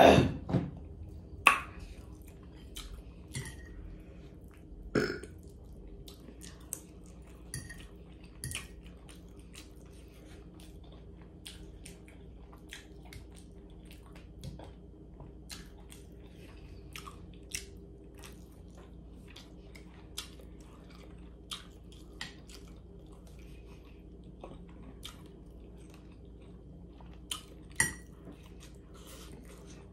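A person chewing soft pasta and bread close to the microphone: many short wet mouth clicks and smacks, with a loud thump right at the start and a few louder smacks along the way.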